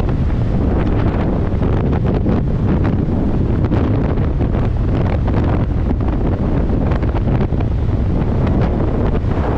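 Strong wind buffeting the microphone: a steady loud rush with many short crackles.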